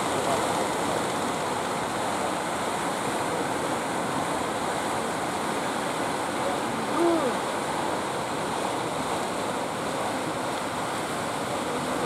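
Ocean surf breaking and washing in a steady rush, with a brief pitched call about seven seconds in.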